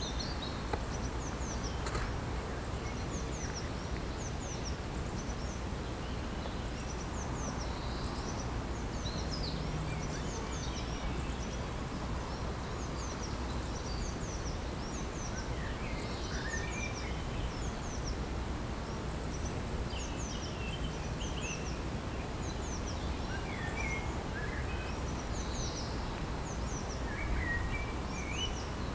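Songbirds calling in a rural garden: a continual run of short, high, falling chirps, with lower chirped phrases breaking in several times, over a steady low background rumble.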